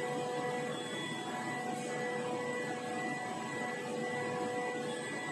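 Steady machine hum: an even background noise with several constant pitched tones, holding unchanged throughout.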